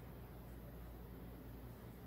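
Quiet room tone: a steady low hum with faint hiss.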